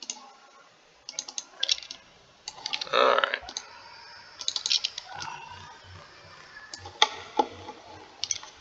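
Computer mouse clicks and keyboard key presses, in short clusters of a few quick clicks with pauses between.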